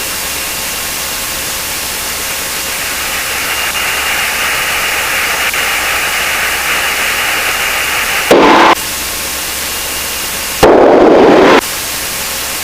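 Steady hiss of static from an aircraft radio and intercom feed. It is broken by two short, loud bursts of static, a brief one about eight seconds in and a longer one about a second long near eleven seconds, like a transmission keyed without clear words.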